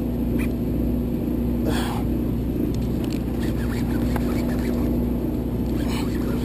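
Party boat's engine running with a steady low drone, with a brief hiss about two seconds in.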